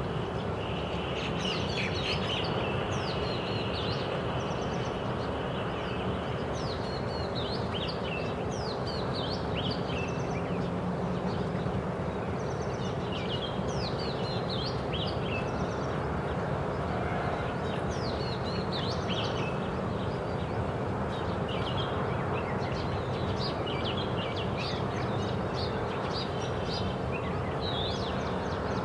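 Male Oriental magpie robin singing: a continuous run of varied short whistled notes and quick sweeps, over a steady background noise.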